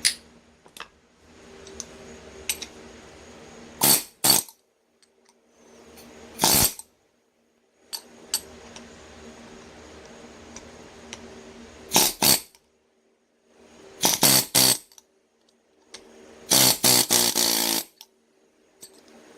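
Light tool taps seating a bearing cap into the yoke of a Ural driveshaft universal joint. They come singly and in small groups, with a quick run of several near the end. A faint steady hum sits under them.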